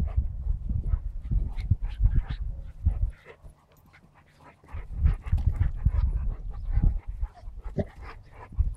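Dogs play-fighting: panting, scuffling and bumping, with a quiet lull about three seconds in before the rough play picks up again.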